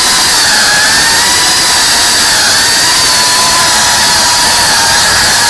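GEPRC Cinelog cinewhoop FPV drone's brushless motors and ducted propellers, a loud steady whine over a hiss, the pitch wavering slightly up and down as it flies.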